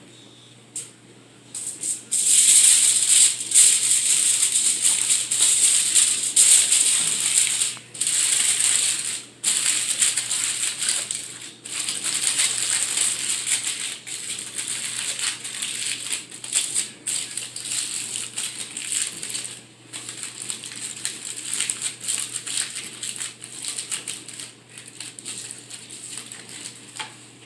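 Aluminium foil being crinkled and folded by hand, a loud irregular crackle that starts about two seconds in and goes on in uneven bursts with brief pauses.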